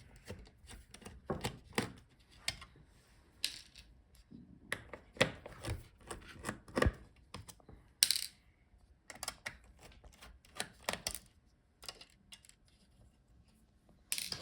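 Small screws being taken out of a gaming laptop's cooling fan with a screwdriver: irregular light clicks and taps as the driver works the screws and they are set down.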